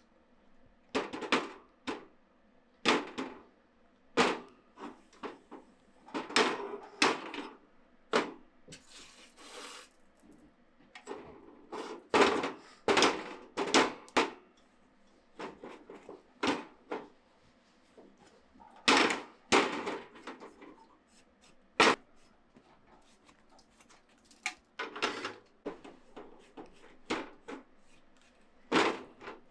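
Copper pan and metal tools being handled on a gas stove during hand tinning: irregular knocks, clinks and scrapes of metal on metal, with a brief hiss about nine seconds in.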